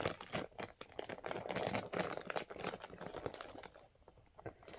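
Plastic candy bag crinkling and rustling as it is handled and torn open, a dense run of crackles that thins out near the end.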